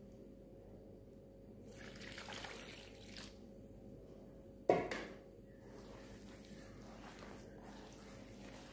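Coconut milk poured onto a thick rice-flour batter in a steel pan, a faint liquid splashing, with a single sharp knock a little past halfway; after it, faint wet sounds of a hand starting to mix the batter.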